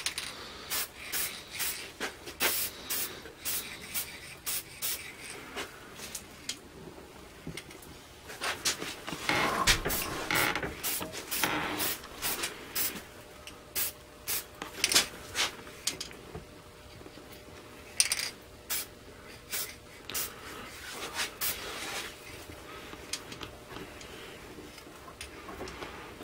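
Spray paint hissing from a handheld spray nozzle in many short spurts, with one longer spray about ten seconds in. The paint comes out in a narrow stream instead of a fan, like spray carburetor cleaner.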